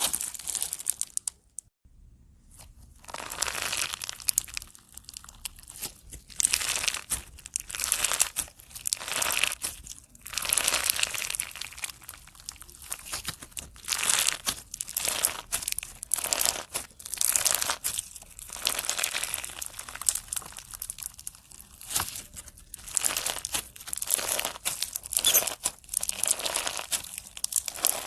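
Slime being squeezed and pressed by hand, crackling and crinkling in repeated bursts about once a second, with a short pause about two seconds in.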